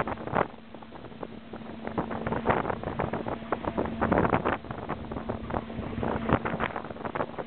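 Working noise aboard a longline fishing boat: a fast, irregular clatter of knocks over a steady machinery hum.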